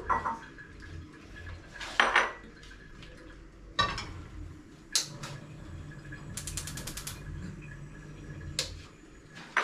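Pots and utensils knocking on a gas cooker, with a quick, evenly spaced run of clicks about two-thirds of the way through, typical of the cooker's electric spark igniter lighting a burner.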